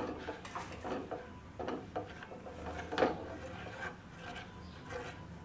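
Silicone spatula scraping and stirring a milk mixture in a steel saucepan: a run of irregular rubbing strokes against the pan, the loudest about three seconds in. The stirring is kept up while the mixture heats so the milk powder and cornflour don't stick to the bottom.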